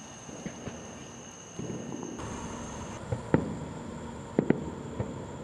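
Fireworks going off: scattered sharp pops and bangs, the loudest about three seconds in and a close pair about a second later, over a steady high trilling of insects.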